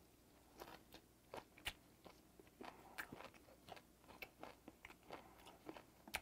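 Close-miked chewing of steamed ray: quiet, irregular small crunches and clicks as the soft cartilage is bitten through, a few every second.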